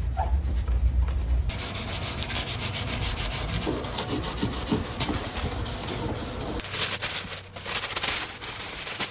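Hand scuffing of painted sheet metal on a Honda Accord's trunk opening with an abrasive pad, in fast back-and-forth scrubbing strokes to prep the paint. Near the end this gives way to the rustle of masking paper being pulled out of the trunk.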